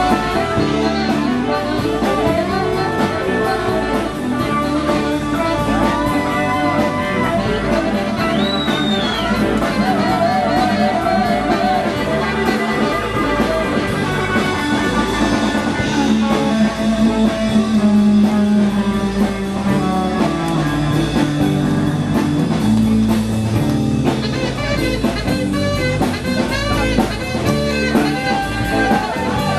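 Live rock band playing an instrumental passage, with electric guitars, bass and drums and no singing.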